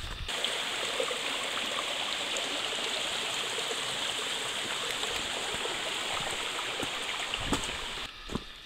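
A small woodland stream running over rocks, a steady splashing hiss that starts and stops abruptly. Footsteps on the trail come in near the end.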